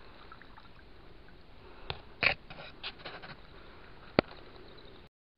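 Handling noises: a few scattered clicks and knocks over a low steady hiss, the sharpest click about four seconds in. The sound cuts out abruptly just before the end.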